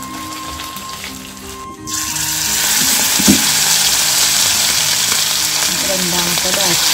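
Chicken legs going into hot oil in a wok: the sizzle jumps suddenly to a loud, dense frying hiss about two seconds in and carries on steadily. One sharp clack of metal comes about a second after the jump.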